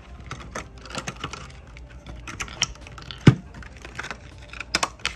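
Small gel polish bottles and caps being handled and set down on a hard surface: an irregular run of light clicks and taps, with one louder knock a little past three seconds in and a quick pair of clicks near the end.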